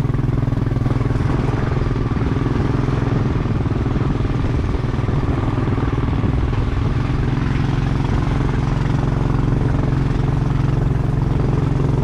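Small motorcycle engine running steadily at a low, even speed, heard from on the bike as it rides along a dirt track.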